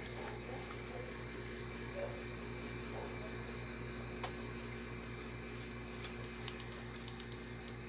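Smartphone speaker playing a Qube CCTV camera app's sound-wave Wi-Fi pairing signal: a rapid, high-pitched string of beeps hopping between a few pitches, which passes the Wi-Fi details to the camera. It stutters near the end and stops.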